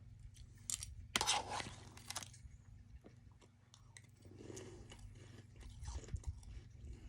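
Close-miked mouth biting and chewing soft freezer frost ice: a loud crunching bite about a second in, then quieter crackling and chewing.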